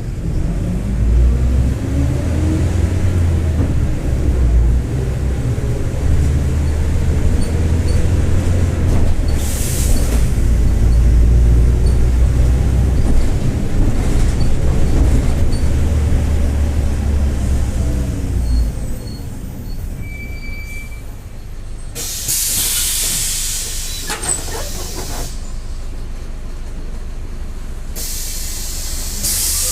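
Mercedes-Benz OF-1721 city bus drivetrain under way, with a whine from the rear differential rising and falling with road speed, a sign of a growling (roncando) differential. About two-thirds of the way in the drive drops off as the bus slows, and a short beep follows. Then come two long bursts of compressed-air hiss from the bus's pneumatics.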